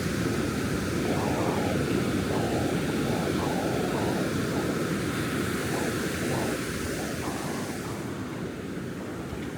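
Ocean surf washing steadily on the beach, with wind on the microphone; it eases off slightly near the end.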